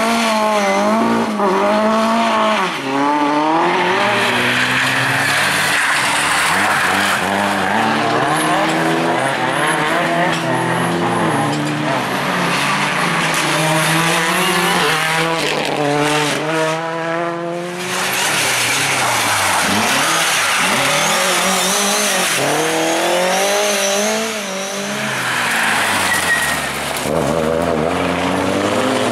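Rally cars driven hard: engines revving up and down through gear changes and lifts, with tyre squeal and skidding. About halfway through one car climbs quickly through its revs before the sound breaks off and another car takes over.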